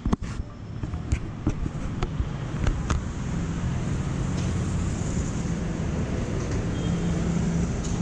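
Steady low rumble of road traffic, with a few sharp clicks in the first three seconds.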